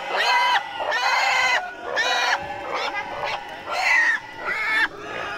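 Pig squealing over and over, loud pitched squeals about one a second.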